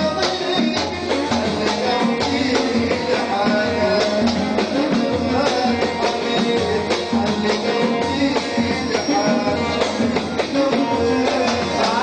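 Live Saudi party music: oud, Korg keyboard and hand percussion playing a busy, steady rhythm.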